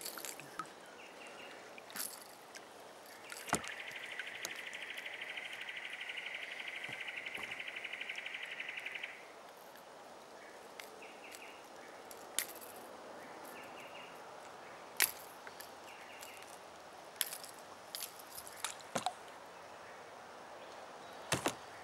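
Small metallic clicks and clinks of a lure's hooks and pliers as a caught fish is unhooked, over a faint steady hum of distant road traffic. About three seconds in, a loud, rapidly pulsing buzz starts suddenly and cuts off about six seconds later.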